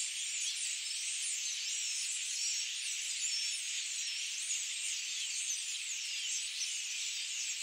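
A dense, high-pitched chorus of many small overlapping chirps and twitters, with no pause or change.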